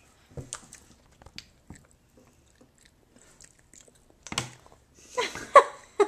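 A baby being spoon-fed: scattered small clicks and mouth-smacking sounds of eating off a spoon. Near the end comes a louder cluster with a brief vocal sound.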